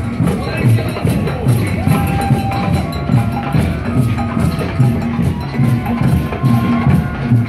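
Marching parade drum band playing a steady beat on bass drums with crisp higher percussion strokes, and a melody line over it.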